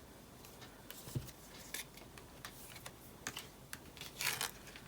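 Faint, scattered light clicks and taps of tarot cards being handled and laid down on a table, with a brief rustle of cards about four seconds in.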